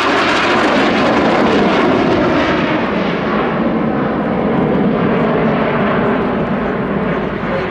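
Dassault Rafale C fighter's twin M88 turbofan jet engines at display power: a loud, steady rush of jet noise. From about three seconds in, the sound grows duller and a little quieter.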